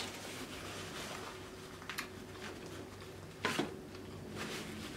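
Close-miked chewing of a mouthful of seafood: quiet wet mouth sounds with a few short smacks, the loudest about three and a half seconds in.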